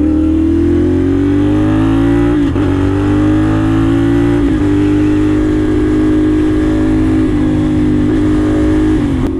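CFMoto 450SR's parallel-twin engine under way, its note rising steadily as it pulls. It dips briefly about two and a half and four and a half seconds in, as with upshifts, then holds a steady cruising note.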